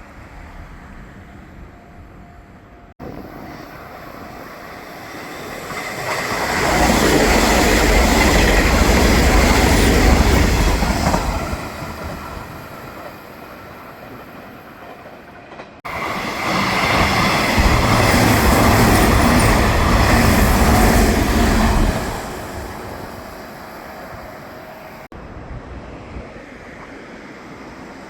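Nishitetsu Tenjin-Ōmuta Line electric trains passing close by, twice: each swells up, stays loud for about five seconds with a steady high whine, then fades. The two passes are separated by an abrupt cut.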